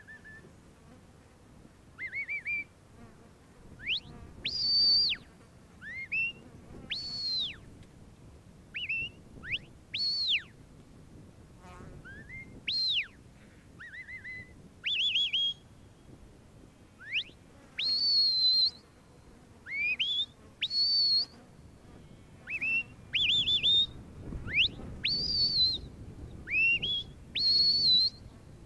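A sheepdog handler's whistled commands to a working border collie: a string of short, sharp whistles every second or two, some rising, some rising then falling, a few held with a warble. These are the signals steering the dog as it moves the sheep.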